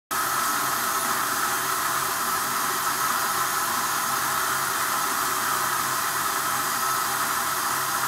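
Mahlkönig X54 coffee grinder running a timed grind dose, a steady grinding noise that starts abruptly.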